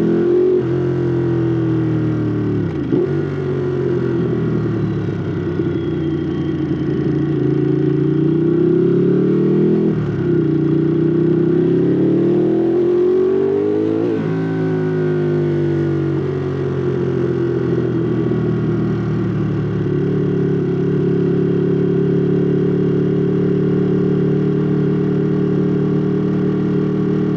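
Ducati Monster 821's L-twin engine through a Termignoni exhaust, accelerating while riding. The revs climb and drop sharply three times as it shifts up, then ease off and hold a steady note at cruising speed.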